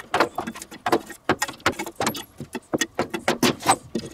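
Metal tongs and a lid lifter clinking and scraping against charcoal briquettes and the ash-covered lid of a cast-iron Dutch oven, in quick irregular clicks and clanks, as the hot coals are cleared off before the lid is lifted.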